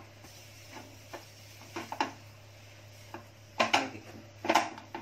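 Metal spatula scraping and knocking against a metal kadhai as gram flour (besan) is stirred and roasted, in irregular strokes that are loudest about three and a half and four and a half seconds in.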